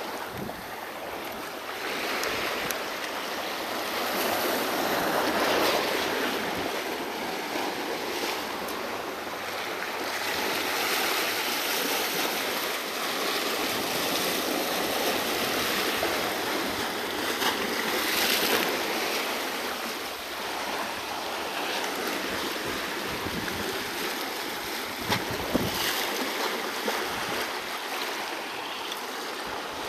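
Small waves washing and surging over sandstone rock ledges at the water's edge, swelling and easing every few seconds, with a few short sharp knocks near the end.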